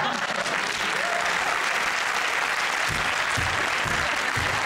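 Studio audience applauding, an even clatter of many hands, with a few dull low thumps from about three seconds in.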